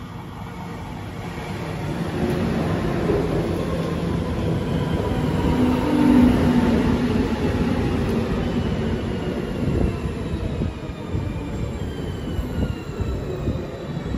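Red DB electric multiple-unit passenger train pulling into the platform. Its wheels rumble on the rails, growing louder as it draws alongside, and a thin motor whine falls in pitch as it slows.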